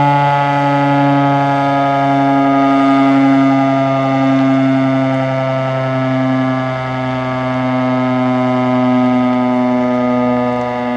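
Federal Signal STH-10A electromechanical outdoor warning siren sounding a steady alert tone during its monthly test. The pitch holds level, and the loudness swells and dips gently.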